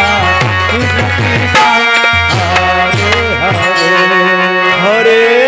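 Devotional kirtan music: a hand drum playing deep bass strokes that slide down in pitch, over steady held notes.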